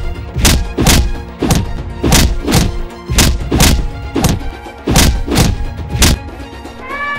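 Heavy thudding footstep sound effects for big animated elephants and mammoths walking, about two thuds a second at a slightly uneven pace, over background music with steady held tones.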